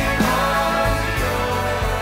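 Recorded indie folk song playing: held notes in many layers over a low pulse.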